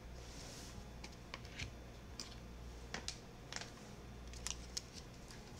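Faint, irregular light clicks and taps, about ten of them, over a low steady hum.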